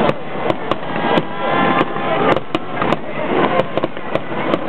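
Aerial firework shells bursting in a rapid finale barrage: sharp bangs about twice a second over a continuous crackling din.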